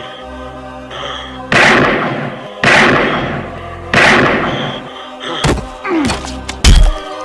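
Three revolver shots about a second apart, each with a long echoing tail, over dark background music. A few sharper hits and a loud thud follow near the end.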